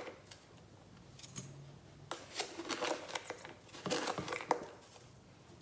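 Caster sugar poured from a plastic container into a glass mixing bowl: two short spells of grainy rustling and light scraping, about two seconds in and again about four seconds in.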